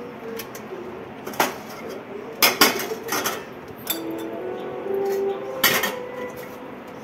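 Steel kitchen pots and utensils clinking and knocking on a counter and gas stove while tea is made. There is one knock, then a quick cluster of clatters in the middle, and a last knock near the end.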